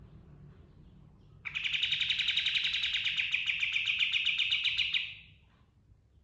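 Kapas tembak (black-winged flycatcher-shrike) singing a long rapid rolling trill of quickly repeated high notes, starting about a second and a half in and fading out near the end, after a few faint chirps; a low steady hum lies underneath.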